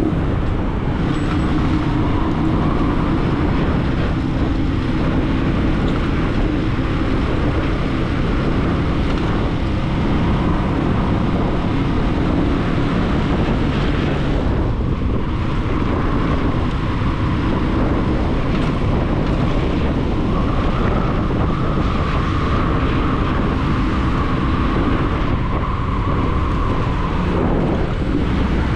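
Steady engine and road noise of a moving vehicle, with wind on the microphone; a faint engine tone rises slightly about twenty seconds in.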